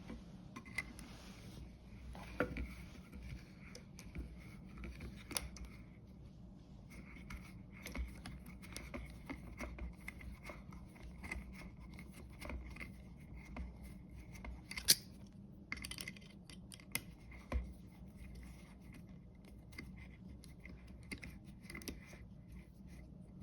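Knipex Twin Grip pliers gripping and turning a headless screw out: faint metal scraping and small clicks, with a sharper click about 15 seconds in.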